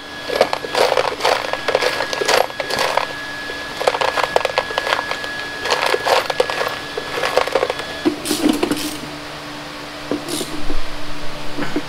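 Small metal hardware and tools clicking and clattering on a workbench as parts are handled, with a steady hum underneath.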